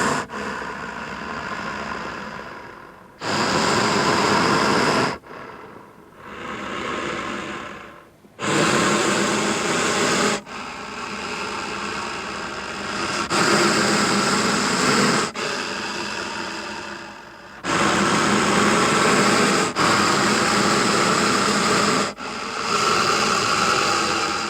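Sound-designed monster growls and roars: a string of harsh, breathy calls of one to three seconds each, louder roars alternating with softer growls, with brief pauses between some of them.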